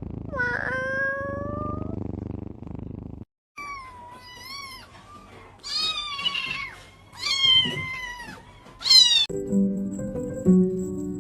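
A cat meowing: one rising call near the start, then, after a brief cut, a run of about four high, wavering meows. Background music comes in near the end.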